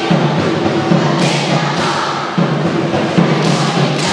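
A group of students chanting the multiplication table in unison, in short rhythmic phrases, with repeated thuds keeping the beat.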